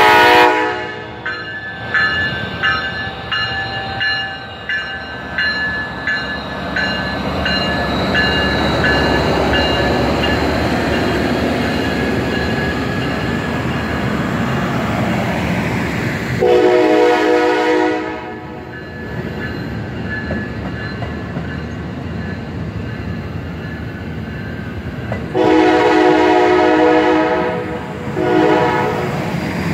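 Horn of an Amtrak Siemens Charger SC44 diesel-electric locomotive: a blast at the start, another about halfway through, and a long blast followed by a short one near the end. A bell rings for the first several seconds. Throughout, the passenger coaches rumble and clack steadily past.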